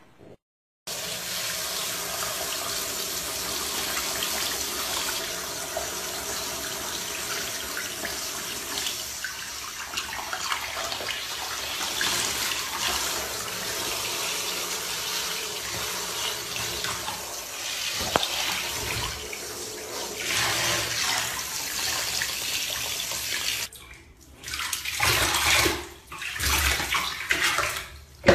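Water running steadily from a tap into a bathtub with a cat standing in it: an even rush that breaks into short separate bursts near the end.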